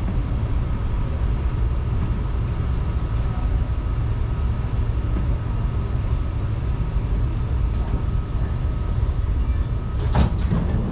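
Singapore MRT train heard from inside the carriage as it slows along the station platform and comes to a stop: a steady low rumble with a faint steady whine, and a faint high squeal in the middle. A short, sharp noise comes near the end.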